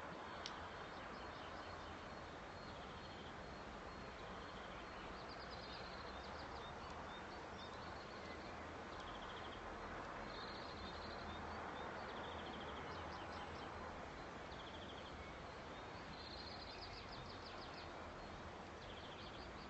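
Faint dawn chorus of songbirds: short trilled and chirped phrases, repeated every second or two, over a steady hiss.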